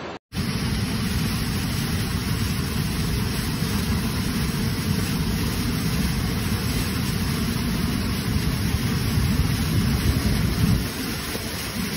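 Muddy wadi floodwater pouring over a rocky ledge: a steady, heavy rush of water with a deep rumble, starting after a brief break.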